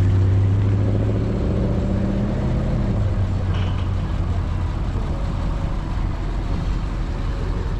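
A car engine passing by, its low hum strongest in the first few seconds and fading away by about four seconds in, over a steady low engine rumble.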